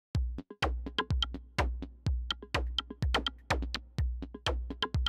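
Electronic music with a drum-machine beat: a deep kick drum about twice a second under sharp clicking percussion.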